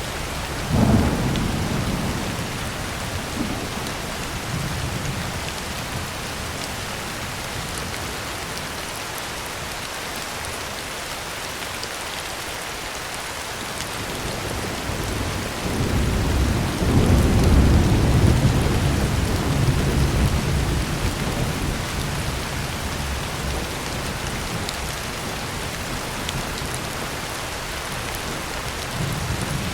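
Heavy rain falling steadily on a tin roof. A sudden clap of thunder comes about a second in and rumbles away over a few seconds. A longer, louder roll of thunder comes about halfway through and lasts around five seconds.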